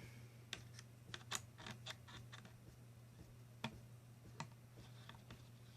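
A scatter of small, light clicks and taps, bunched in the first two seconds with a couple more later, as the small bolts holding the rifle's rail are unscrewed and handled.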